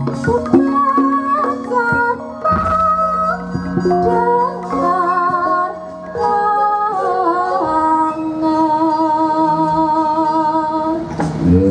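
Javanese gamelan music with a female sinden singing over it, her voice wavering and ornamented against the steady held tones of the instruments.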